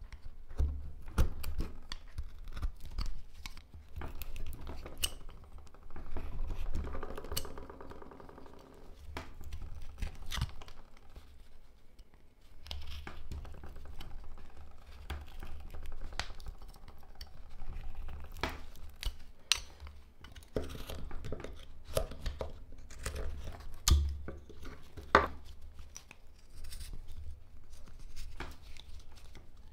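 Carving knife cutting and scraping hard black locust wood in short strokes, with small clicks and snaps as chips come away. A brief squeak sounds about seven seconds in.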